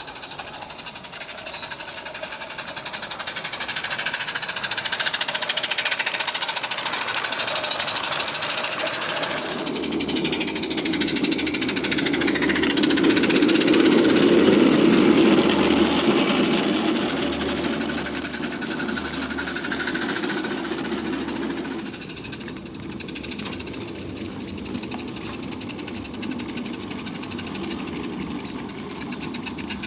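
Roundhouse Billy 16mm-scale live steam locomotive chuffing with a fast, even exhaust beat over a steady steam hiss. A rumble of the train running on the track comes in about a third of the way in, is loudest near the middle, and fades again.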